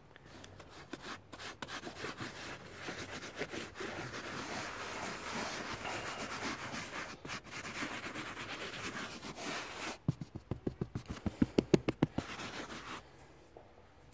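A hand rubbing baking soda into a car's carpeted floor mat, a steady scratchy scrubbing. About ten seconds in it turns to quicker, louder strokes, around seven a second, and it stops shortly before the end.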